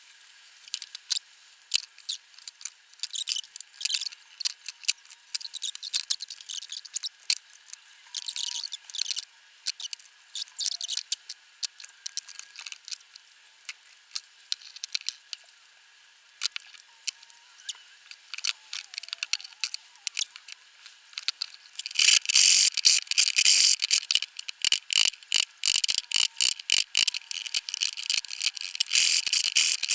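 Hand tools marking out on wood give light scratching strokes and scattered clicks. About two-thirds of the way through, a louder, dense run of rapid rattling clicks takes over.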